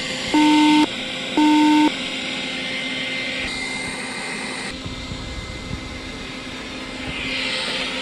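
Roborock S5 robot vacuum running on carpet: a steady whir from its suction fan and brushes, with a faint steady high whine. Near the start come two loud electronic beeps, each about half a second long.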